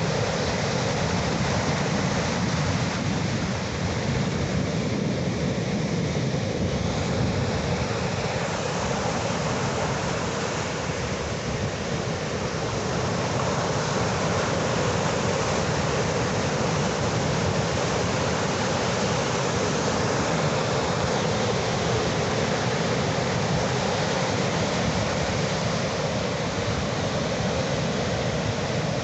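Ocean surf: a continuous, even rush of breaking waves with no distinct lulls.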